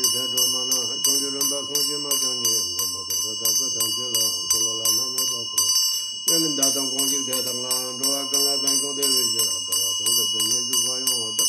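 Tibetan ritual hand bell (drilbu) rung continuously in quick, even strokes, its high metallic tones ringing on between strikes. Under it a man chants in a low voice, with long held notes that glide in pitch.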